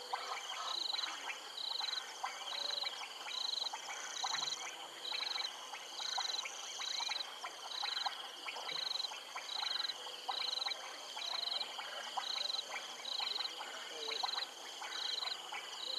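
Chorus of frogs and insects: a high note repeated steadily about one and a half times a second over a constant shrill trill, with many short frog clicks and croaks throughout.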